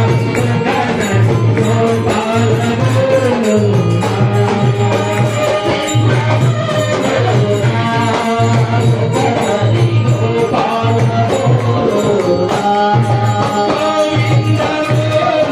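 Hindu devotional bhajan: a man sings a gliding melody through a microphone and loudspeaker, over steady rhythmic percussion and a low pulsing accompaniment.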